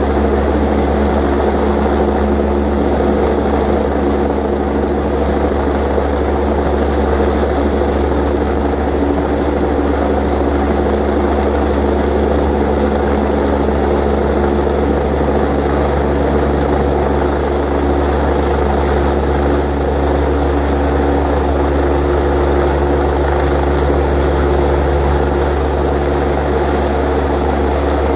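Air force helicopter flying low overhead on its approach to land. Its rotor and turbine engines give a loud, steady sound with a deep low throb.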